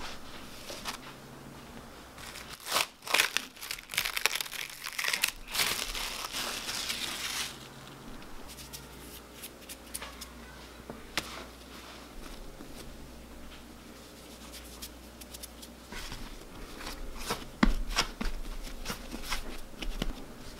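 Cloth cover rustling as it is pulled off the yeast dough, loudest in the first third. Later come softer handling sounds and a few light knocks as the dough is set on a floured wooden board and pressed.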